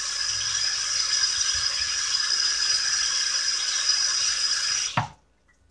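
Kitchen faucet running steadily into the sink, shut off suddenly about five seconds in.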